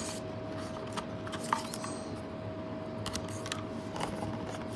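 Quiet room tone with a faint steady tone and a few light clicks and taps from a hand handling a cardboard card-game box and its cards.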